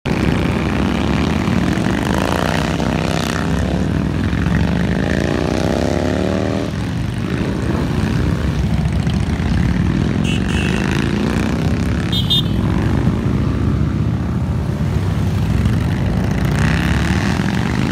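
A line of heavy touring motorcycles riding past one after another at low speed, their engines running steadily, with the pitch sweeping each time a bike goes by. Two short high beeps are heard around ten and twelve seconds in.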